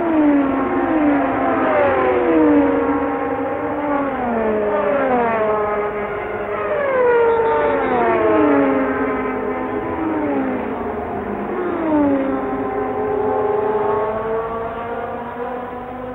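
Early-1970s Formula 1 racing engines passing at high speed one after another in a close pack. Each engine note drops in pitch as its car goes by, and the cars thin out near the end.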